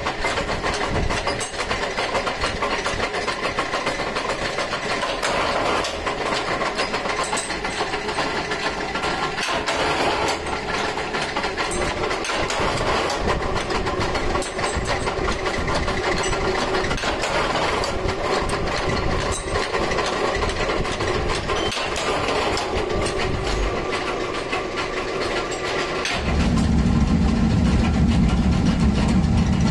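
Workshop forming machine for U hooks running steadily, with many short metallic clanks as steel rods are shaped in its dies. About 26 seconds in, this gives way to the steady low hum of an electric blower feeding air to a forge furnace.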